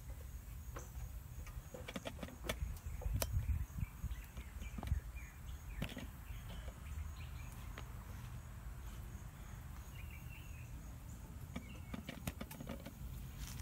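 Scattered light clicks and knocks of hardware being handled on a metal fence-rail antenna pole, bunched in the first few seconds and again near the end, over a low steady rumble, with a few faint bird chirps.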